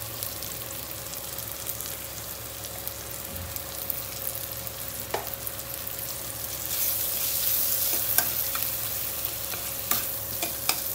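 Onion, tomato, green chilli and curry leaves sizzling in hot oil in a kadai while a spatula stirs and scrapes them, with a few sharp taps of the spatula on the pan. The sizzle grows louder about two-thirds of the way through.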